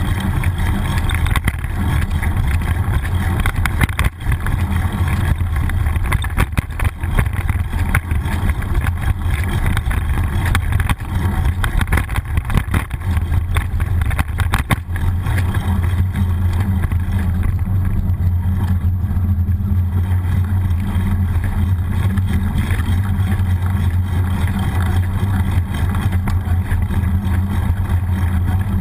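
Wind buffeting and road rumble on a bicycle-mounted action camera while riding a city street, a steady low rush with scattered knocks and rattles from bumps, several between about 11 and 15 seconds in.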